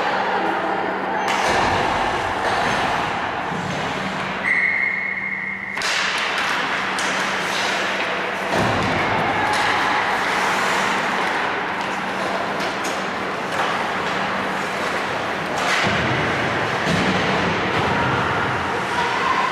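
Ice hockey play: skates scraping the ice, with sticks and puck knocking and thudding against each other and the boards, over a steady hum. A brief high tone is held for about a second, about four and a half seconds in.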